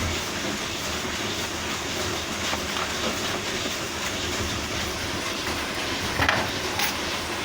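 Steady whirring noise of a freshly powered-on desktop PC's cooling fans running, with a few small clicks about six to seven seconds in.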